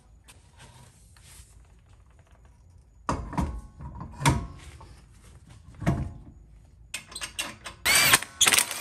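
Alloy wheel being hung back onto a car's front hub studs: several heavy knocks as the wheel is pushed into place, then quick metallic clicks and a loud ringing clatter near the end as the lug nuts are started by hand.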